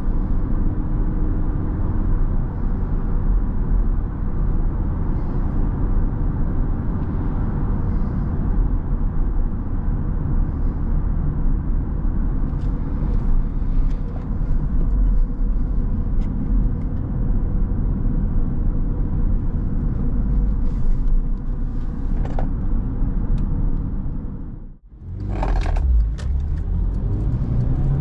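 Cabin sound of a 2011 Skoda Octavia with its 1.6-litre petrol four-cylinder cruising at highway speed: a steady engine hum mixed with tyre and road rumble. Near the end the sound dips away briefly, then the engine note starts to rise as the car accelerates.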